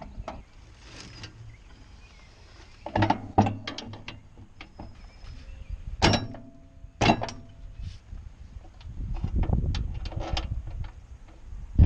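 Scattered mechanical knocks and clicks, the loudest a few about three, six and seven seconds in, with a low rumble swelling near the end.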